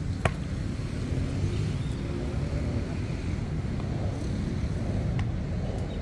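Steady low rumble of wind buffeting the microphone outdoors, with a sharp click about a quarter second in and a fainter one near the end.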